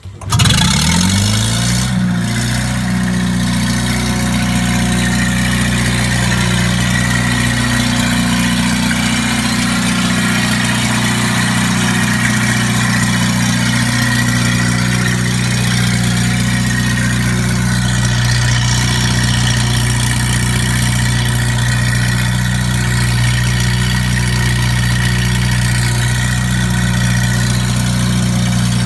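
1953 Kohler generator's Waukesha gasoline engine starting: it catches at once and comes up to speed within about a second, then runs steadily. It runs without any exhaust system fitted.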